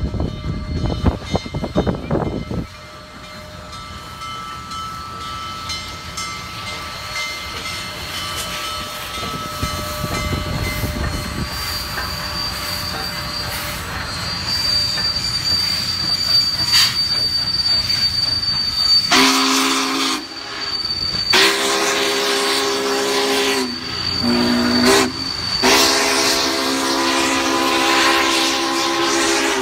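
Union Pacific No. 844 steam locomotive rolling past with a high, steady squeal from the train as it slows. Partway through, its chime whistle sounds four blasts, long, long, short and long: the grade-crossing signal. A loud low rumble fills the first few seconds.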